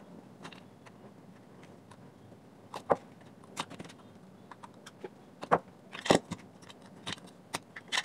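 Scattered small clicks and clinks of a screwdriver working screws out of a plastic projector lens barrel and the barrel parts being handled, the loudest about six seconds in.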